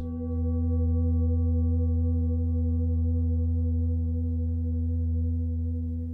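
A steady musical drone of several held, ringing tones over a deep low hum. It starts abruptly at the very beginning and holds without fading.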